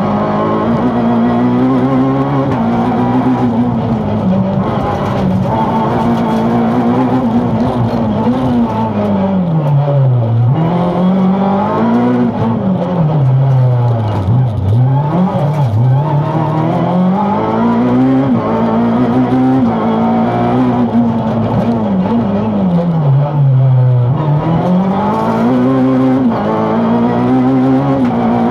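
Peugeot 207 rally car's engine driven hard on a stage. The engine note holds high, then falls steeply and climbs again as the car slows and accelerates, dipping low about a third of the way in, twice around the middle and once more near the end.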